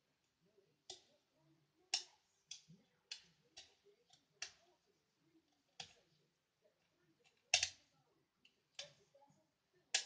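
Irregular sharp metallic clicks, about one a second, as a lever pick and tension tool work the levers inside an ERA Fortress 5-lever sash lock; the loudest click comes about seven and a half seconds in.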